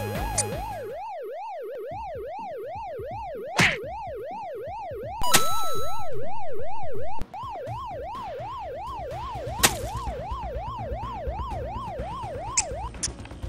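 Siren sound effect wailing quickly up and down, two or three sweeps a second, stopping just before the end. Near the middle a loud steady electronic tone cuts in for about two seconds, with a short swish shortly before it and a sharp click a few seconds after.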